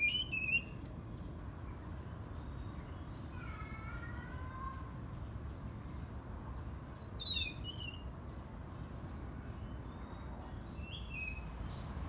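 Oriental magpie-robin giving short phrases of song: sharp, falling whistled notes in three brief bursts, near the start, about seven seconds in and near the end, over a steady low background rumble.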